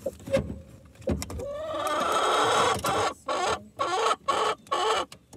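Hen squawking loudly: one long harsh call building up from about a second and a half in, then a run of short squawks, about two a second.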